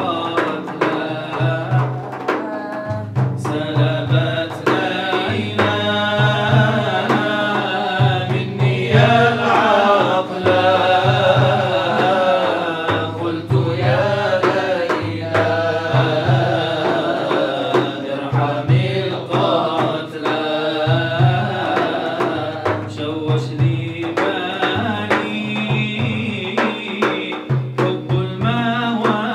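A man singing an Arabic Sufi nasheed into a microphone in long, wavering lines, over a steady hand-drum beat.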